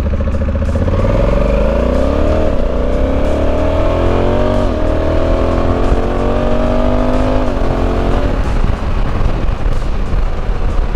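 Honda Africa Twin's parallel-twin engine accelerating through the gears. Its pitch climbs and drops back at each of three upshifts, then holds steady at cruising speed, with wind noise throughout.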